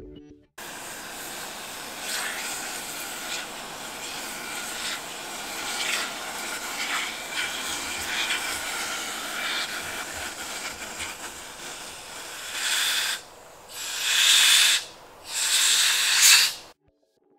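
Aerosol freeze spray hissing steadily through its straw nozzle, then three short, louder blasts near the end, the last the loudest.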